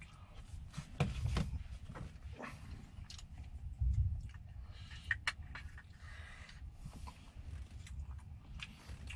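Close-up eating sounds: chewing and mouth noises, with irregular small clicks and scrapes of a spoon against plastic food containers.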